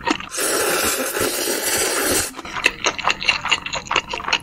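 A long, loud slurp of noodles being sucked in through the lips, lasting about two seconds. It is followed by wet chewing with sharp mouth clicks.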